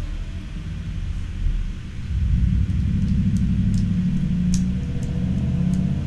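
Background music carried by deep, sustained bass notes that get louder about two seconds in, with a few light high ticks.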